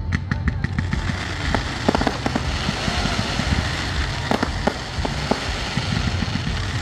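A multi-shot consumer fireworks cake firing: a quick run of sharp pops in the first second, then scattered bangs over a steady crackling hiss as the comets rise and burst.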